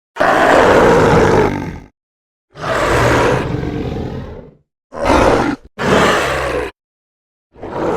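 Demon roar sound effects: four separate rough roars with dead silence between them. The first two each last a couple of seconds, the second fading out; the next two are short, and another begins near the end.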